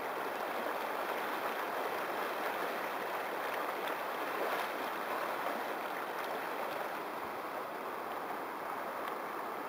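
Shallow, stony river water rushing steadily, splashing around the legs of a wader who shuffles his feet on the riverbed to stir up insects into a kick-sampling net.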